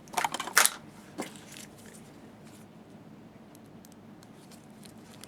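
A few short rustling, squishing handling noises in the first second, then a single click, then quiet room tone.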